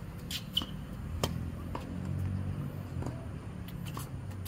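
Tennis rally on a hard court: sharp pops of the racket strings meeting the ball and the ball bouncing off the court, the loudest about half a second and just over a second in. A steady low rumble runs underneath.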